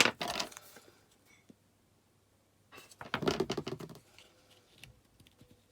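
Paper rustling and crackling as die-cut paper leaves are handled and curled, in two bursts: a short one at the start and a longer one about three seconds in.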